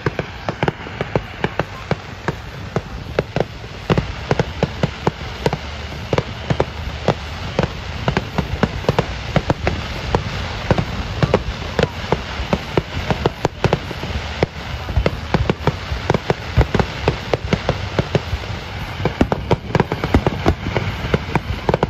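Aerial fireworks display: many shell bursts and pops in quick succession, overlapping one another, over a steady low rumble.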